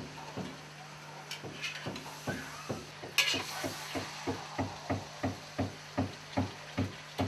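Metal spoon knocking and scraping against a metal pot while carrot strips are stirred. The strokes come faster from about two seconds in, about three a second near the end, over a steady low hum.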